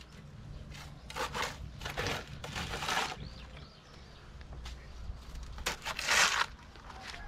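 Masons' steel trowels scraping cement mortar on concrete hollow blocks, in four or five short, rough scrapes.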